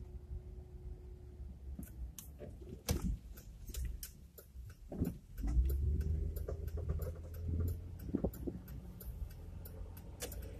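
A car's engine hums low, then pulls away and picks up speed, its pitch rising from about five seconds in. Irregular sharp clicks run through most of it, about three or four a second.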